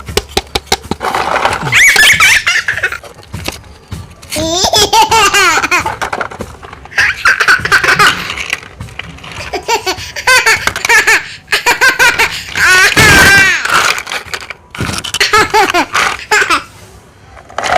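A child laughing in high-pitched, repeated bursts, after a rapid clatter of clicks in the first second or so.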